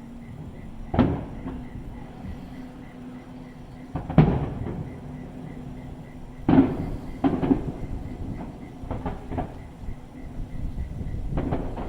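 Fireworks exploding: single booms about a second in and about four seconds in, then a cluster of bangs around the middle, followed by a run of smaller pops near the end.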